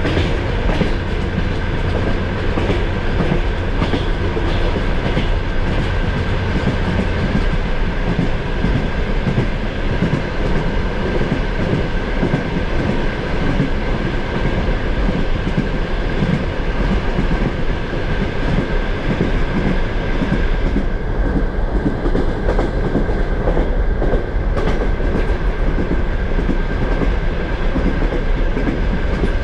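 Suburban electric multiple-unit train running at speed, heard from inside the carriage: a steady rumble of wheels on the track with a steady high tone above it. The higher hiss dips for a few seconds about three-quarters of the way through.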